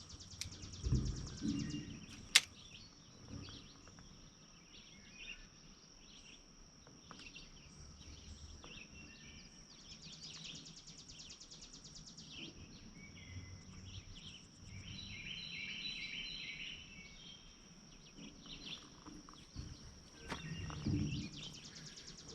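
Quiet lakeside nature ambience: a steady high-pitched drone with scattered bird chirps and calls, busiest in the second half. There is a single sharp click a little over two seconds in, with a few soft low thuds just before it.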